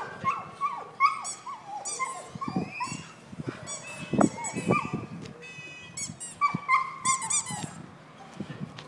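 Kerry Blue Terrier whining and yelping over and over in short, high cries that mostly drop in pitch, the eager whining of a dog straining towards a ball held up out of reach.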